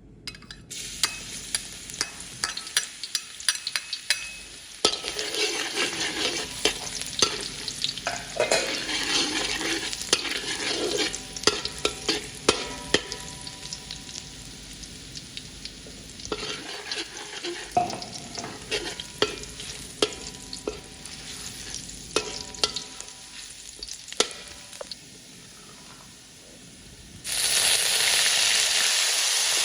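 Garlic and lemongrass frying in hot oil, sizzling while a utensil stirs them, with many sharp clicks and scrapes against the pan. About 27 seconds in, a sudden, much louder steady sizzling hiss takes over.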